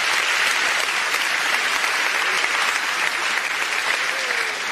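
Congregation applauding steadily, tapering off near the end.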